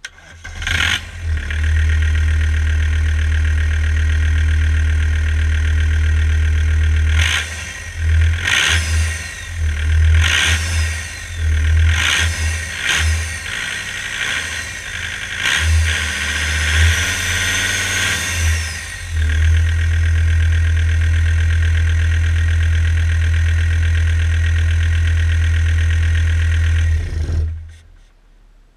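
John Deere 5030LV02 turbocharged diesel engine starting, running steadily, then revved up and down several times with a whine rising and falling with the revs, settling back to a steady idle and shut off near the end. It runs smoothly, a good runner.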